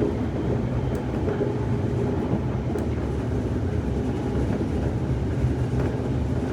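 Steady running noise heard inside a Semboku Rapid Railway 7000 series electric train car: a continuous low rumble of wheels on rails and running gear.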